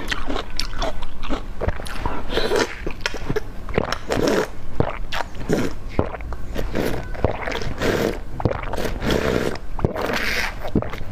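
Close-miked mukbang eating: biting into and chewing crunchy dessert, a dense run of crunches and crackles.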